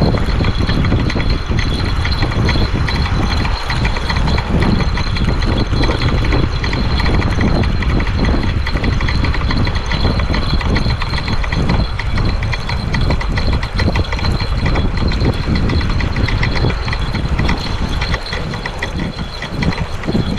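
Spinning fishing reel working, with a fine rapid mechanical ticking and gear rattle throughout. Heavy wind buffets the microphone underneath.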